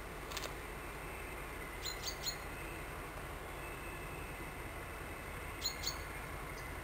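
Steady distant rumble of an SU45 diesel locomotive and its regional train approaching along the line. Over it a small bird chirps, three short calls about two seconds in and two more near the end.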